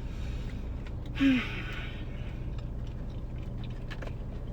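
Car engine idling with a steady low hum. About a second in, one brief breathy vocal sound, a short sigh or exhale.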